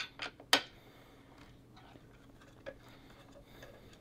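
A few sharp metallic clicks from a 6mm hex wrench working a screw on the machine's metal parts, the loudest about half a second in, then near quiet with one faint tick later on.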